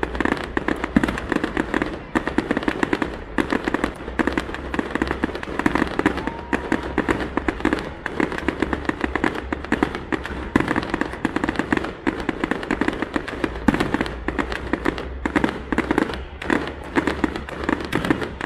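Fireworks display: aerial shells bursting in quick succession, a dense, unbroken run of bangs.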